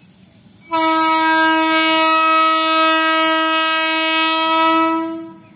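Horn of an Indian Railways WAG12B electric locomotive: one long, steady blast of about four and a half seconds, starting just under a second in and stopping near the end.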